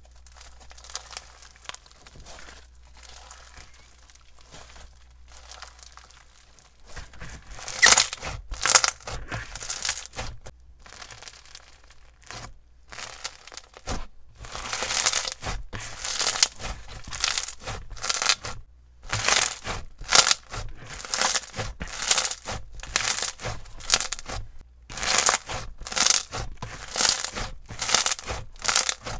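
Bingsu bead slime being squished and kneaded by hand, its packed beads crunching and crackling. Soft crackles at first, then from about seven seconds in loud crunches come in quick repeated bursts, about one a second.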